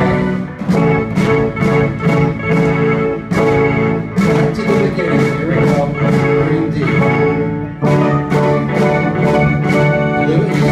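Small rock band playing live: drum kit keeping a steady beat of about two hits a second under electric guitar and electric keyboard chords.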